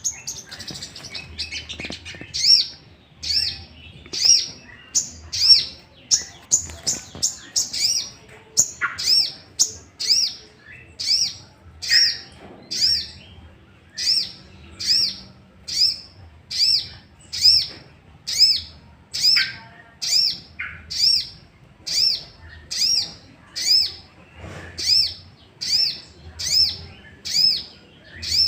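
Little spiderhunter (sogok ontong) calling: a quick jumble of sharp, high chirps, then about eight seconds in a single arched, piercing note repeated steadily a little more than once a second. It is a bait call played to excite other sogok ontong into calling back.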